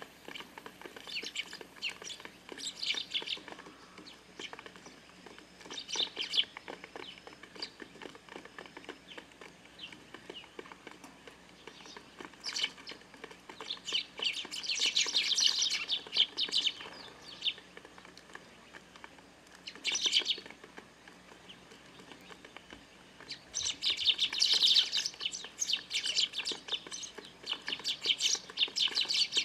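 Eurasian tree sparrows chirping in scattered bursts of rapid calls, busiest about halfway through and again near the end.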